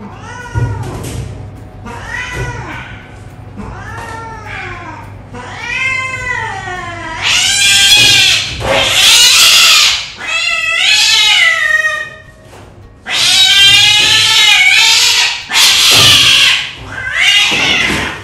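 Domestic cat yowling in distress while restrained for wound treatment. About ten drawn-out wailing cries rise and fall in pitch, growing much louder about halfway through.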